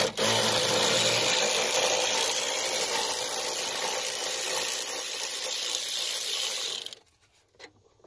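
Handheld power tool running steadily through a socket extension, backing out a bolt, with a brief stop just after it starts; it cuts off about seven seconds in.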